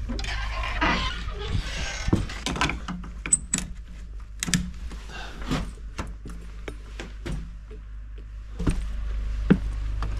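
Metallic clicks and rattles of a padlock and hasp being unlocked by hand, then more scattered clicks and knocks as a switch and a door knob are worked, over a steady low hum.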